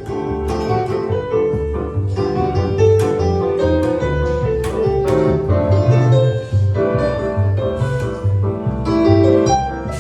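Acoustic instrumental music led by piano, with a low bass line pulsing underneath.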